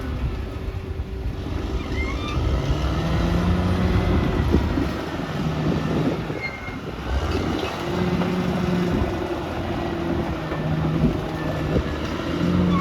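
Caterpillar D6R XL bulldozer's diesel engine running as it works, its note shifting up and down a few times, with a few knocks around the middle.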